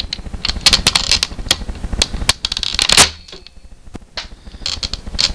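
Rapid clicking and rattling from handling a spring-loaded airsoft M4, with one louder sharp snap about three seconds in, after which the clatter eases.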